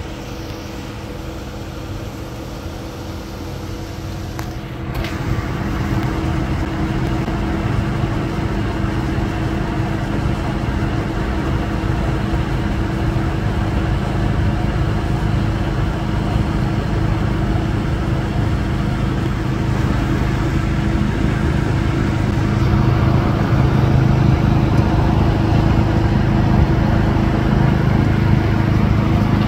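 Diesel freight locomotives running: a steady engine drone with a deep rumble. It gets louder about five seconds in and again near the end as a train draws closer.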